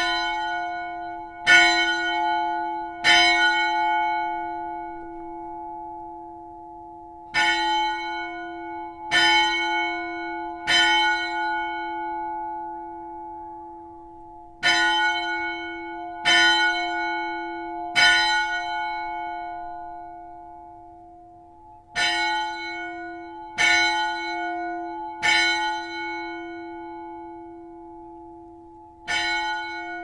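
Hrísey church's bell rung in groups of three strokes about a second and a half apart, with a pause of about four seconds between groups. Each stroke is the same pitch and rings on with a long, slowly fading hum.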